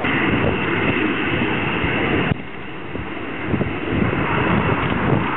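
Jet noise from Red Arrows BAE Hawk jets flying a display, a heavy rumbling rush. It dips abruptly about two seconds in and then builds again.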